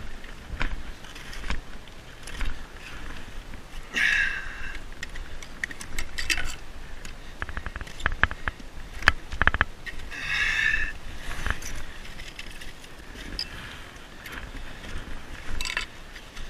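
Gloved hands and climbing gear scraping and knocking on rock during a rock climb, with metal gear clinking in many short clicks. Two brief higher-pitched sounds come about four and ten seconds in.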